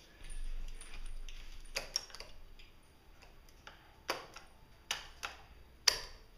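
About six sharp, irregular taps and clicks, the loudest near the end, over a low rustle in the first couple of seconds.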